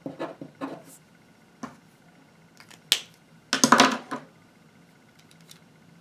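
Pen writing on paper in short scratchy strokes, followed by a couple of sharp clicks and a louder burst of handling noise about three and a half seconds in.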